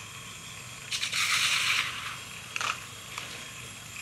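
Plastic shaker bottle handled while a powdered drink is mixed in it: a second-long burst of rattling, scraping noise about a second in, then a shorter one a little later.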